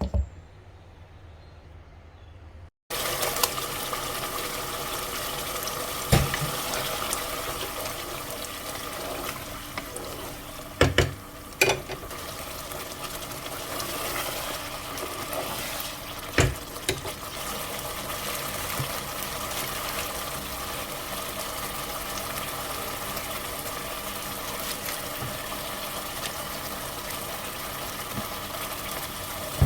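Steady hiss and bubbling of curry cooking in a pot on the stove, starting abruptly about three seconds in. It is broken by four sharp knocks of a utensil against the pot.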